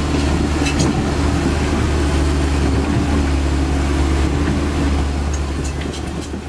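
Komatsu PC130F excavator's diesel engine running steadily as the machine tracks through shallow river water, with a few sharp clanks near the end as the sound fades.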